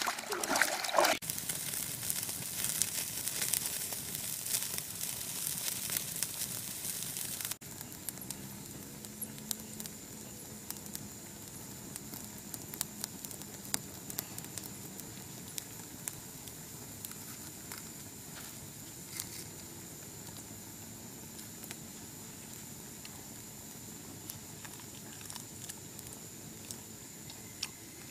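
Water splashing and trickling for the first several seconds. It cuts off abruptly and gives way to a campfire crackling with scattered pops, over a steady high-pitched whine.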